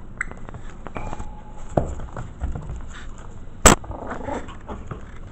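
Five-week-old Maltese-mix puppies scuffling and bumping against the camera, with a few short thin whines. A sharp knock a little over three and a half seconds in is the loudest sound.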